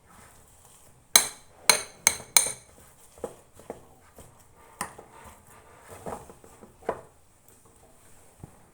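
Kitchen utensils and dishes clinking: four sharp, ringing metallic taps in quick succession about a second in, followed by softer knocks and clatter.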